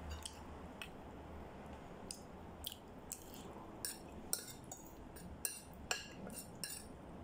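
Metal fork and spoon clinking and scraping against a ceramic plate while scooping rice, in a dozen or so irregular sharp clinks, the sharpest in the middle.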